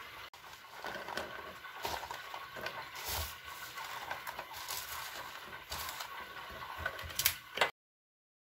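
Blanched almonds tipped from a bowl into an electric grinder, clattering as they fall in, with knocks from handling the bowl and the grinder. A pair of sharp knocks near the end, then the sound cuts off suddenly.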